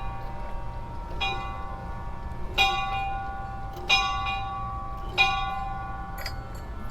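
Large church bell mounted above a porch, rung by pulling its rope: four even strokes, each ringing on into the next.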